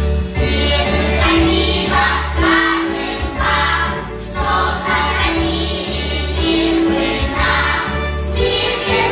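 A group of young children singing a song together in unison over a recorded musical accompaniment with a steady bass line.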